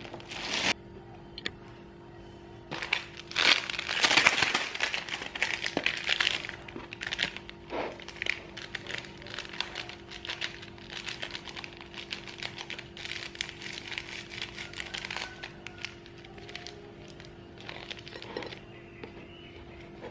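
Crinkling of a plastic Milo sachet and light rustling and scraping as chocolate malt powder is sprinkled onto slices of white bread and spread, loudest a few seconds in and thinning out later, over a steady low hum.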